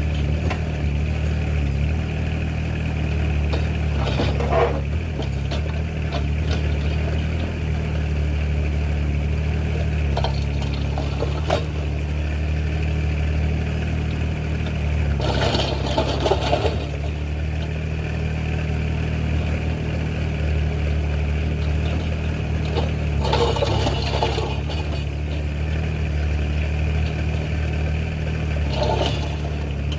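Mini excavator's engine running steadily, with four short louder bursts of noise, typical of the machine working its bucket.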